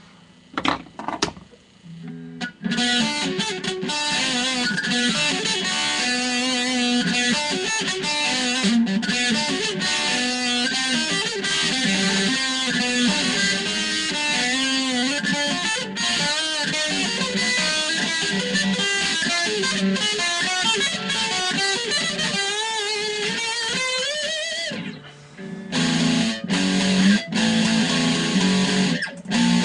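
BC Rich Warlock electric guitar being played: a few separate picked notes, then long held notes with wavering, bending pitch. About 24 s in a note slides upward and breaks off, and it goes into choppy low riffing.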